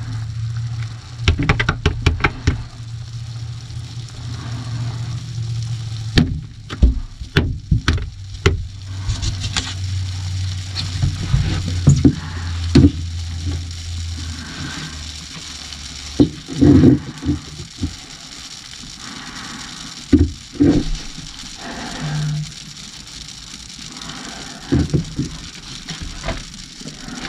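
Scattered knocks, bumps and rustling as a person shifts and handles a mixing cup inside a fiberglass boat hull, over a low steady hum that stops about halfway through.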